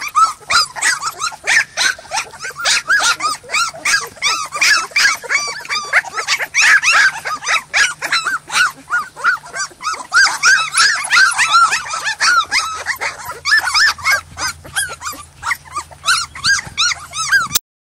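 A litter of three-week-old American Molossus puppies whining and crying together in a dense stream of short, overlapping high-pitched cries. The sound cuts off suddenly near the end.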